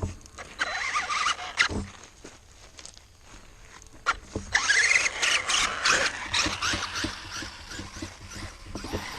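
Electric RC mud truck's motor whining under throttle with its tires spinning in mud, in two bursts: a short one early and a longer one of about four seconds later on.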